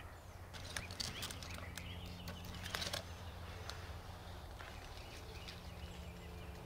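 Field ambience at dawn: faint bird calls over a low steady hum, with a cluster of sharp clicks and rustles between about one and three seconds in.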